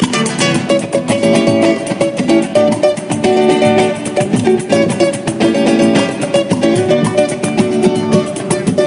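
Live instrumental samba: acoustic guitar and cavaquinho strummed in a quick, even rhythm over pandeiro, with no singing.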